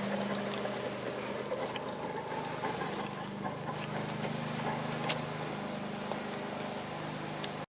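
Sound of model NSW 38 class steam locomotives standing: a steady low mechanical hum with a few faint clicks. It cuts off suddenly near the end.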